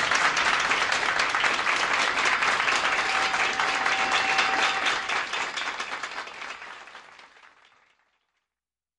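Audience applauding, many hands clapping at once; the applause fades from about five seconds in and dies away by about eight seconds.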